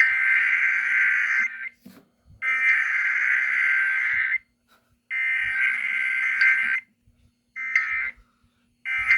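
Emergency Alert System SAME digital data tones: three harsh, buzzy data bursts of about one and a half to two seconds each with short gaps, then two brief bursts near the end.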